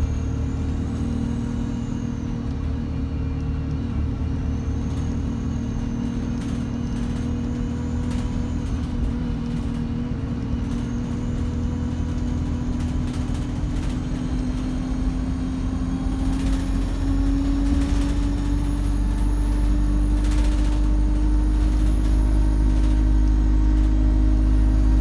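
Diesel bus engine running with its turbocharger whistling: a faint high whine that rises and falls, over a steady engine drone that climbs slowly in pitch in the second half as the bus pulls harder. A few short hisses of air come through in the second half.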